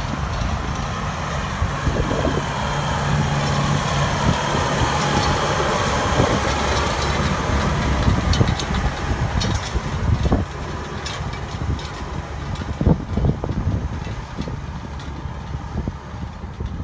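John Deere tractor's diesel engine running steadily as it pulls a scraper land leveler across dry soil, with a rushing noise and scattered crackles over the engine hum. It grows quieter about ten seconds in as the tractor moves away.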